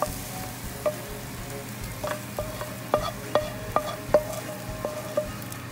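Wooden spoon knocking and scraping against a frying pan, a run of about ten sharp knocks that quicken from about two seconds in, each leaving a short ringing tone in the pan, as fried grated carrot and onion is scraped into a pot of boiling broth. A steady hiss of frying and bubbling runs underneath.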